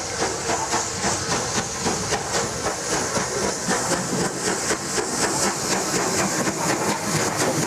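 Rebuilt Bulleid West Country class three-cylinder Pacific steam locomotive Hartland working its train. Its exhaust beats in a quick, even rhythm over a steady hiss of steam.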